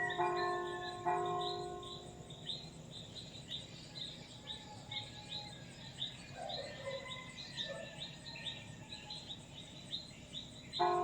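Church bell struck just after the start and again about a second in, ringing and slowly fading, then struck again near the end. Small birds chirp rapidly and steadily throughout.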